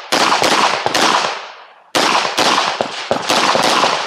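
Semi-automatic pistol firing a rapid string of about eight shots, mostly in quick pairs, with a pause of about a second partway through.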